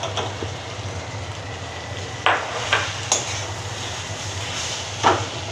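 Masala frying in an iron kadhai with a steady sizzle, while a steel spatula scrapes and knocks against the pan as mashed potato is stirred in. There are a few sharp knocks between about two and three seconds in and another near the end.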